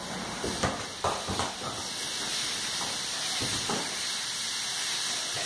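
A steady hiss with several soft, short thumps in the first few seconds: children's bare feet and a small football on a tiled floor.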